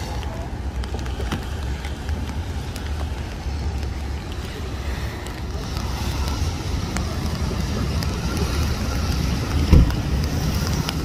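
Wind buffeting the microphone over the hiss of traffic on wet pavement, with one short thump near the end.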